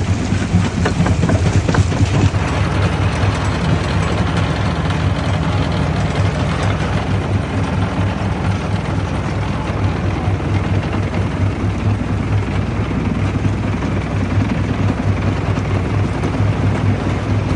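Quarry primary jaw crusher running with a steady heavy rumble and a low hum. Sharp knocks of stone being broken come in the first couple of seconds.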